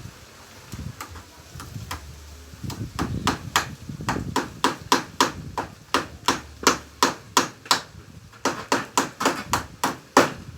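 Hammer driving nails through tarpaulin into a wooden 2x4 frame. A few scattered taps come first, then a steady run of blows at about three a second.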